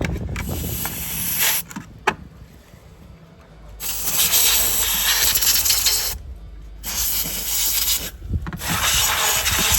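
Can of compressed air spraying in four hissing blasts, the longest about two seconds, blowing rust and debris out of a propane fridge's gas burner.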